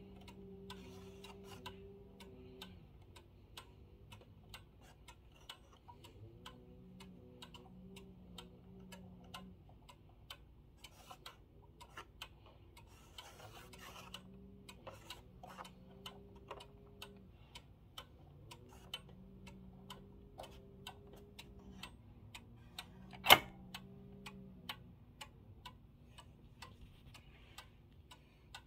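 Early-1900s 30-day pendulum mantel clock ticking steadily while its minute hand is being turned. One sharp, much louder click about three-quarters of the way through.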